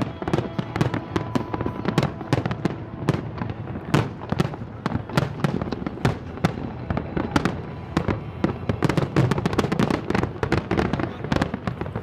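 Fireworks display going off: a dense, irregular run of sharp bangs and crackles, several a second, over a continuous low rumble of the explosions.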